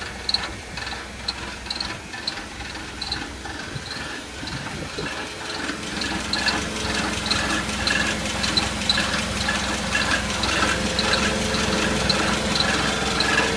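Cat GP35 forklift's spark-ignition engine idling after a cold start, with a regular light ticking. About six seconds in, a steady hum comes in and the engine grows louder.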